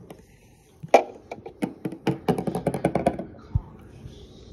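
A burst of quick clicks and taps, starting about a second in and dying away a little after three seconds, followed by a single low thump.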